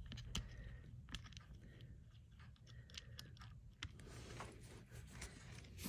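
Faint, scattered clicks and taps of a stroller's plastic wheel and fittings being handled as the wheel is worked onto its axle and pin.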